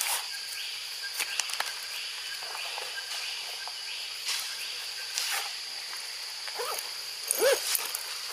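Steady, high-pitched buzzing of forest insects, with scattered short clicks and rustles among the branches. Near the end a brief call that dips in pitch stands out as the loudest sound.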